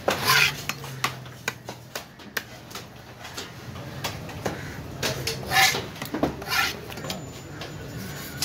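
Heavy curved fish-cutting knife knocking and scraping on a wooden log chopping block while cutting fish: a run of sharp knocks with a few longer, louder scraping strokes near the start and again around the middle.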